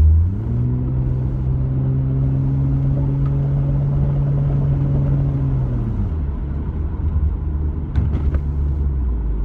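VVTi 1JZ-GTE turbo straight-six rising in pitch as power is gently applied, holding steady for about five seconds, then dropping back as the throttle eases. Under the load the rear end knocks, which the driver takes for a failing drive shaft or 7.5-inch open differential.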